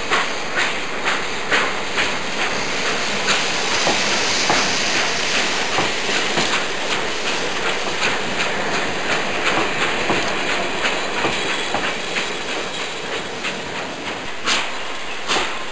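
Train running on rails: an even clicking of wheels over the rail joints, about two a second, under a steady hiss that is strongest in the middle.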